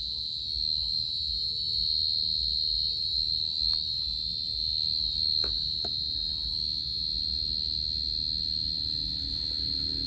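Crickets singing: a continuous, steady, high-pitched trill, with a few faint clicks near the middle.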